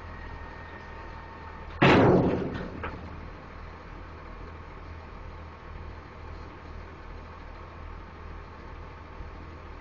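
One loud bang as the truck-mounted grapple loader comes down into the truck's steel dump body, ringing out over about a second, with two lighter knocks just after. The truck's diesel engine idles underneath with a steady low hum.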